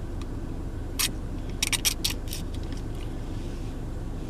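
A few short crackles and clicks of food packaging being handled, over the steady low hum of the car running.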